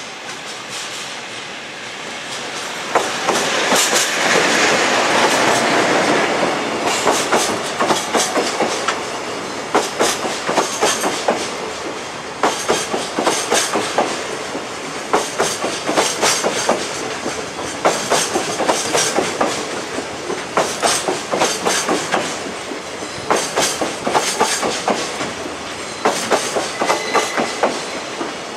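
Freight train led by an ED76 electric locomotive, pulling in to stop at the station. There is a louder rush as the locomotive goes by from about three to six seconds in. After that, the container wagons' wheels click over the rail joints in repeated groups.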